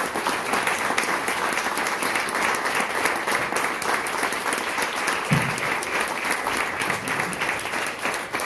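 Audience applauding, many hands clapping steadily, with a single low thump about five seconds in.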